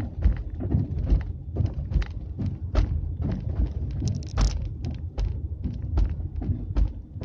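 Volkswagen Polo Sedan steering rack knocking: repeated irregular dull knocks, about two to three a second, over a steady low rumble. The knock comes from a worn rack bushing, which the owner cures by replacing it.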